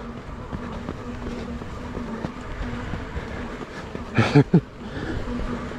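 Lectric XP 3.0 e-bike's rear hub motor whining on throttle in short on-and-off stretches while the bike is jogged alongside through deep sand. About four seconds in, the rider gives a brief loud vocal sound.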